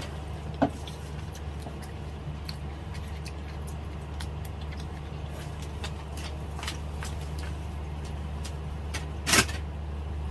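A steady low hum with scattered light clicks and knocks: a short knock about half a second in, and a louder, sharper knock about nine seconds in.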